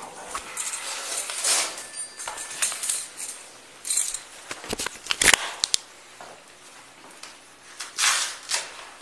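Clothing and shoes being handled and rustled close to a body camera's microphone, with fabric brushing the camera. A quick cluster of sharp clicks and knocks comes about five seconds in, and another rustle about eight seconds in.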